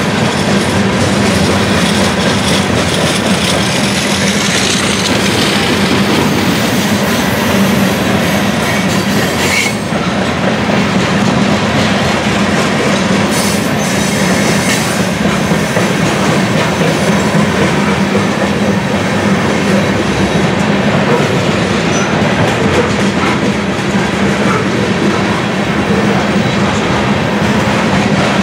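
Steady rolling noise of a long freight train of covered hopper cars passing close by: steel wheels running over the rails.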